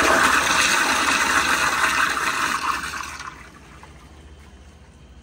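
A 2000 Crane Placidus toilet bowl flushing on a flushometer valve: water rushes through the bowl and drains, dying away about three seconds in to a faint trickle.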